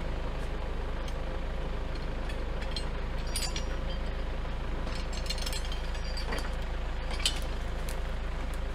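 Kubota L4701 compact tractor's diesel engine running steadily, with scattered light clicks and knocks over it and a sharper knock near the end.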